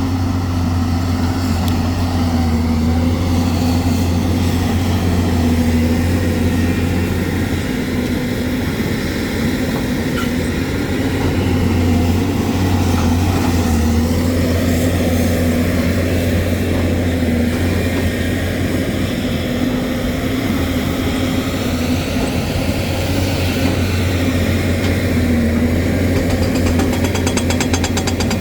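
Hyundai excavator's diesel engine running steadily at working speed, with fainter higher tones drifting up and down over its low hum.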